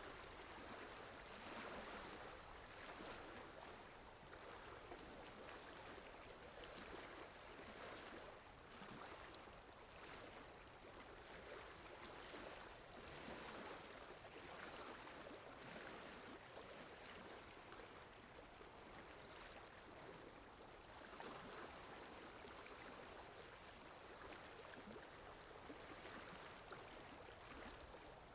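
Rain falling steadily: a faint, even hiss that gently swells and eases.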